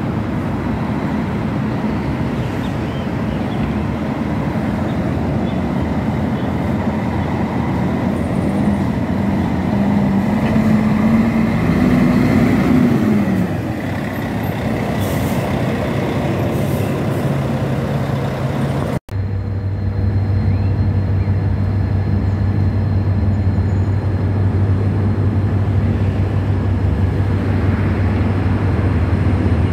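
Diesel intercity coach engine pulling away and passing close, its pitch rising as it accelerates and dropping at a gear change about 13 s in. After an abrupt cut near 19 s, a steady low diesel hum from another coach running at low speed.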